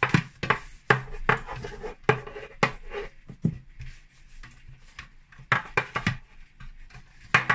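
A hand rubbing butter over a metal baking tray, the tray knocking and scraping on the worktop in irregular taps as it is pushed around.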